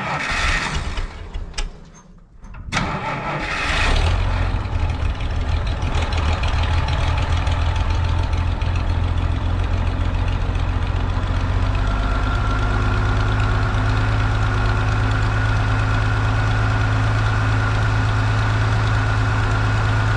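Farmall 560's six-cylinder engine being cranked on the starter in two short tries, catching about four seconds in and then running steadily. It is starting on its newly fitted distributor with electronic ignition, new coil and new wires.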